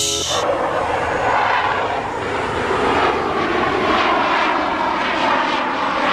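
Fighter jet flying past, its engine noise a loud, steady rush with a whine that slowly falls in pitch.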